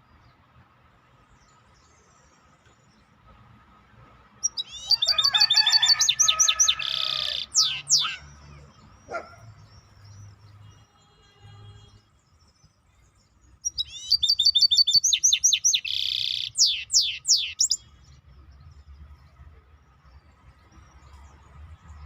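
Songbird singing two loud song phrases about ten seconds apart, each a rapid high trill running into a held note and a few quick downward-sweeping notes.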